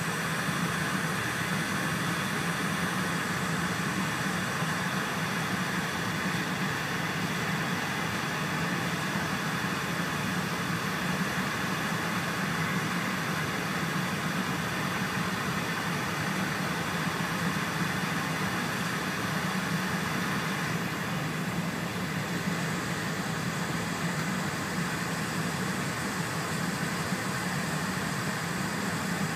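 Steady running noise of an E4 series Shinkansen at speed, heard from inside the passenger cabin: an even rumble and hiss. The hiss dims briefly about two-thirds of the way through.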